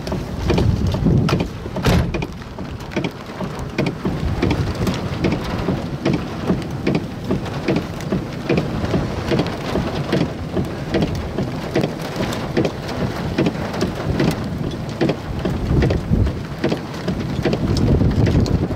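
Rain falling, with drops hitting close to the microphone as a dense, irregular run of sharp taps over a deep rumble.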